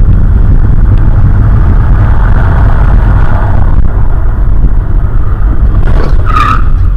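Steady low road and engine rumble of a car heard from a dashcam inside it. About six seconds in, a short sharp crash from a collision between cars on the road just ahead.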